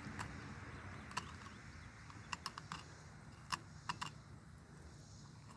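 Faint, irregular light clicks and ticks of a knife cutting along a spotted bass's bones as it is filleted.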